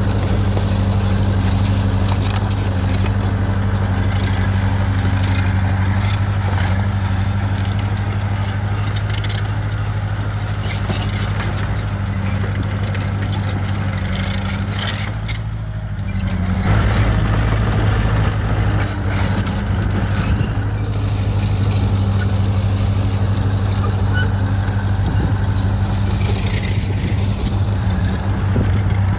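Diesel engine of heavy earthmoving machinery running steadily under work, with metallic clinking and rattling. The engine note drops briefly about halfway through, then picks up again.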